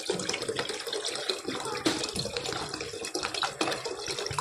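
Water poured in a steady stream from a plastic bottle into an aluminium pressure-cooker pot of cooked pigeon peas, splashing into the liquid.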